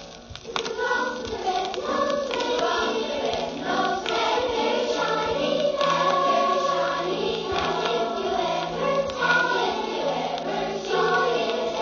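A choir singing, many voices together.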